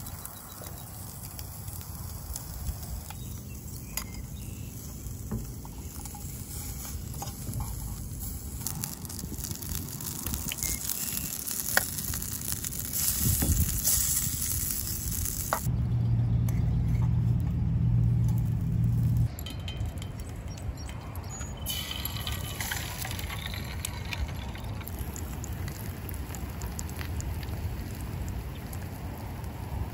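Sausage patties and then an egg sizzling in a small pan on a gas-canister camp stove, heard across several short cuts. A steady low hum runs under the sizzle for a few seconds just past the middle.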